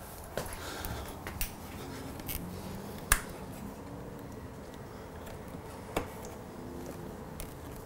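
A few sharp clicks and light taps at irregular moments, the loudest about three seconds in and another near six seconds: the motorcycle's handlebar switch housing and its small parts being handled and fitted.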